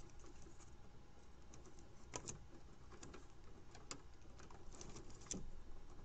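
Faint scratching and a few small, sharp clicks of a metal dental pick working against a plastic Molex-style connector housing, pressing down a crimp pin's locking tab to free the pin.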